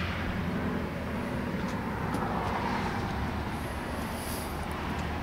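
Car engine idling, a steady low rumble.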